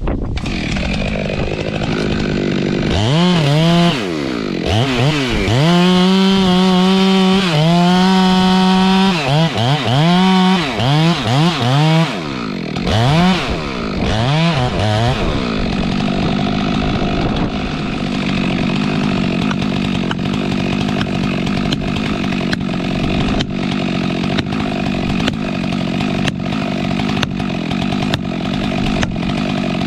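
Stihl MS 462 two-stroke chainsaw revving hard in repeated throttle blips, its pitch climbing and dropping over and over, then running steadily for the second half.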